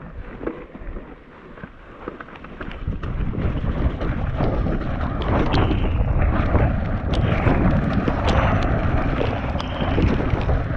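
Mountain bike ridden down a wet trail, heard through a chest-mounted GoPro. It is fairly quiet for the first few seconds, then about three seconds in it turns into a loud, steady rumble of tyres and wind on the microphone, with many sharp rattling clicks from the bike.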